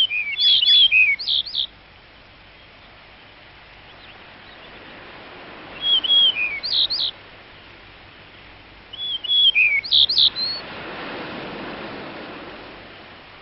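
A wild songbird singing the same short phrase of quick whistled notes three times, a few seconds apart. A soft rush of background noise swells near the end.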